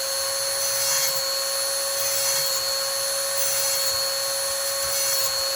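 Neotec electric chainsaw sharpener running with a steady high whine, its grinding wheel dressing the chain's cutters, with slight swells as the wheel works each tooth.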